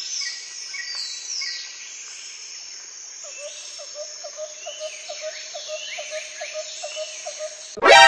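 Forest ambience sound effect: birds chirping and whistling over a bed of insects, joined about three seconds in by a run of short lower calls repeating about four times a second. Just before the end a loud rising sweep cuts in.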